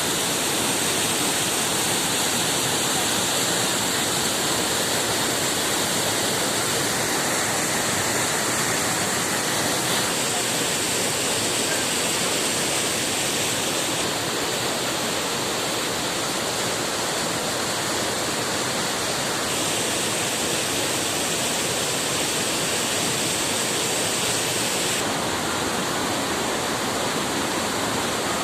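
Lodh Falls waterfall pouring: a steady, even rush of falling water.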